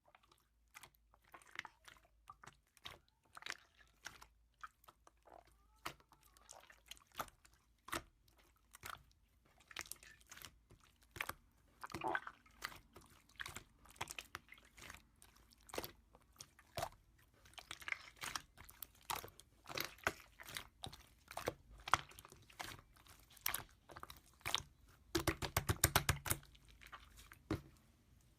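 Slime being pressed and poked by hand, giving irregular crackling clicks and pops, with a quick dense run of clicks near the end.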